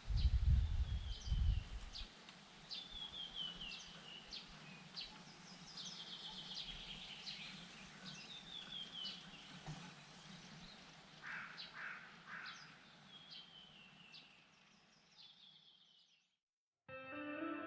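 A songbird sings the same short descending phrase over and over outdoors. A low rumble runs through the first two seconds, and ambient music begins near the end.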